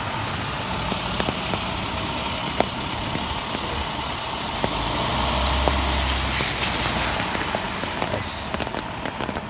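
Steady outdoor street noise in a snowstorm, a mix of traffic and wind. It swells about four seconds in with a hiss and a low rumble, then eases near the end.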